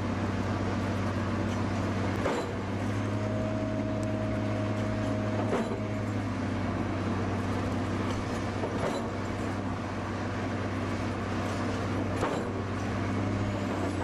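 Diesel engine of a heavy slag-handling vehicle running steadily with a low, even drone, and a sharp click about every three seconds.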